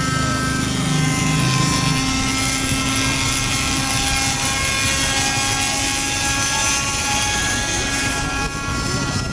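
Raptor RC model helicopter flying low over the water: its engine and spinning rotor give a steady whine made of several pitched tones over a rushing hiss.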